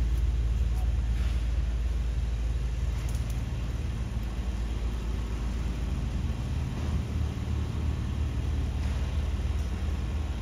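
City street ambience: a steady low rumble of vehicle traffic, with faint voices.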